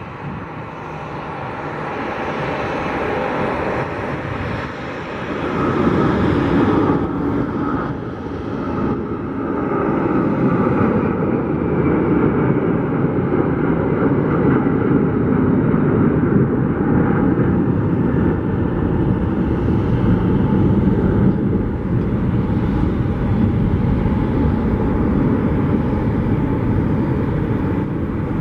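FedEx McDonnell Douglas MD-11 three-engine jet at takeoff power, rolling down the runway and climbing out. The engine noise builds over the first six seconds into a loud, deep rumble with a rushing hiss, then holds steady as the aircraft climbs away.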